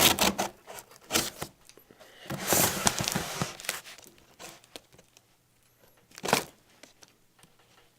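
Scissors and hands working at the tape and cardboard of a large shipping box. A few sharp knocks come first, then about a second of tearing and crinkling, then a single knock near the end.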